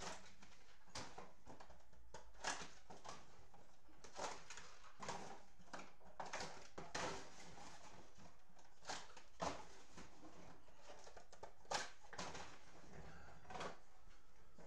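Irregular light taps and rustles, a dozen or so spread unevenly over a steady low room hum, as someone handles things at a desk.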